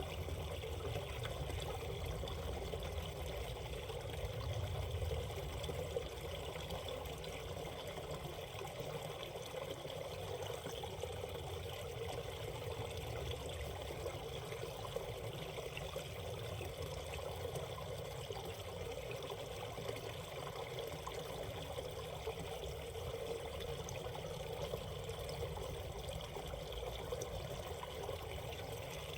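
Valley stream water flowing and trickling steadily over the rocks of a shallow creek riffle.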